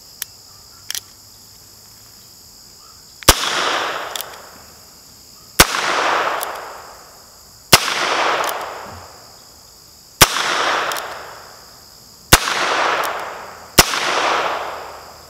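Six shots from a Heritage Rough Rider single-action .22 LR revolver, fired one at a time about two seconds apart, each followed by a rolling echo. All six cartridges fire without a misfire. Two light clicks come in the first second, before the first shot.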